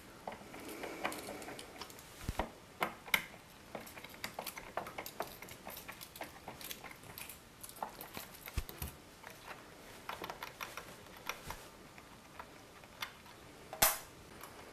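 Irregular light clicks and taps of a small screwdriver and fingers working on screws, metal shielding and cable connectors inside an opened iMac G4, with one sharper click near the end.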